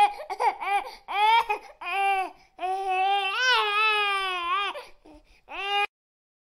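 High-pitched crying voice: a string of short cries that rise and fall, then one long wavering wail about two and a half seconds in. It cuts off suddenly near the end.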